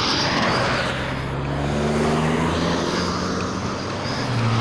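Road traffic: cars driving past on the road, a steady rush of tyre and engine noise with a low engine hum that comes in about a second in and strengthens near the end.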